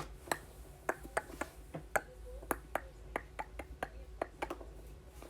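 A run of irregular sharp clicks and taps, roughly three a second, over a faint steady hum.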